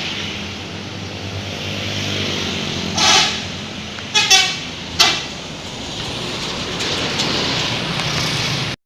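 A bus's engine running amid road noise, with three short blasts of a multi-tone 'telolet' horn about three, four and five seconds in. The sound cuts off abruptly near the end.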